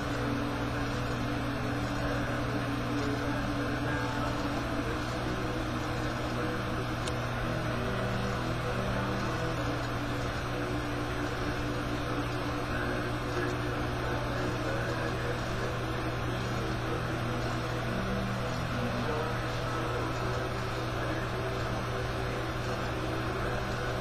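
Television soundtrack played through the TV's speakers and picked up by a webcam's microphone: a steady low hum under a noisy wash, with faint low held tones that shift every second or so.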